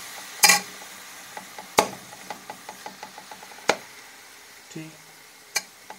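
Metal spoon stirring chicken mince in an aluminium karahi, scraping and knocking against the pan: four sharp knocks, about one every two seconds, with lighter clicks between them and a faint sizzle of the mince frying.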